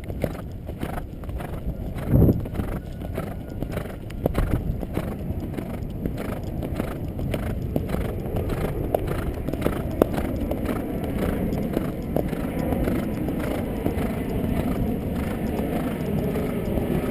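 Horse's hooves striking the ground in a steady, even rhythm as it is ridden, with a brief loud low thump about two seconds in and a steady rushing noise that builds in the second half.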